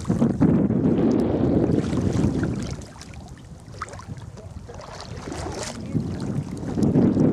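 Wind buffeting the camera microphone with a low, gusty rumble. It is strong at first, eases about three seconds in, and picks up again near the end.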